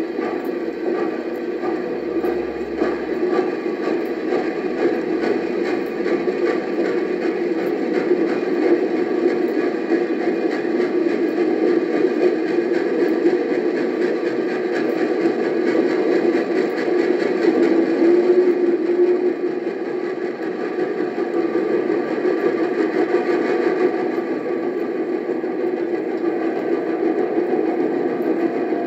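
Norfolk and Western Class J 4-8-4 steam locomotive No. 603 and its train running, a steady heavy rumble, from a 1957 field recording played back on a vinyl record.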